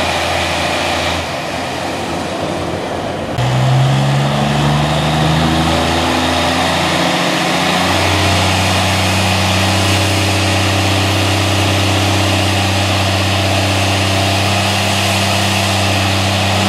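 Drag-racing funny truck's engine running at low revs. Its steady note steps up in pitch and loudness about three and a half seconds in, then holds a slightly higher, even idle from about eight seconds on as the truck creeps toward the starting line.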